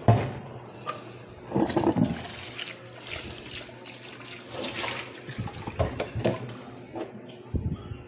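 Tap water running into a plastic bowl being rinsed in a stainless steel sink, with a few knocks as the bowl is handled. The flow stops about seven seconds in.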